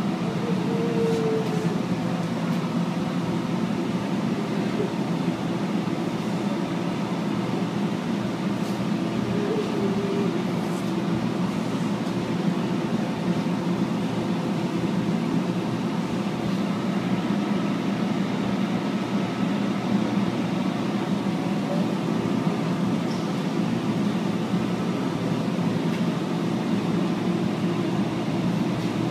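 Cremation furnace running: a steady drone of its burners and blower fans, an even rushing noise with a constant hum through it.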